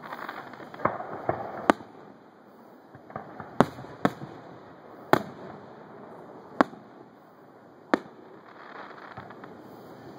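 Aerial firework shells bursting in the sky: about eight sharp booms, irregularly spaced, some close together and some a second or more apart.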